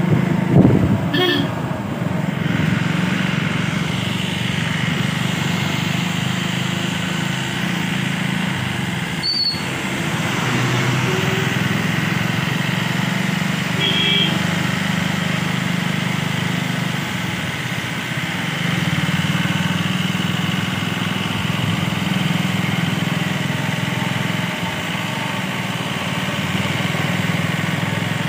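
A bus engine runs steadily, heard from inside the bus, with road noise over the drone. There is a low thump just after the start.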